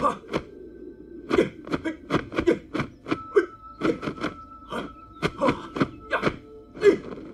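Kung fu film soundtrack: an irregular run of sharp hits, about two or three a second, with a faint held note behind them.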